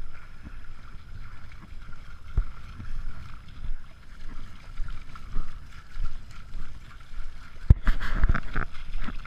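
Feet splashing and sloshing through ankle-deep lake water, with wind rumbling on the microphone. A louder run of quick splashes comes near the end.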